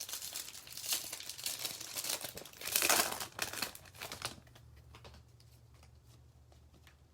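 Plastic baseball card pack wrappers crinkling and tearing open, loudest about three seconds in. After about four seconds it drops to faint clicks of cards being handled.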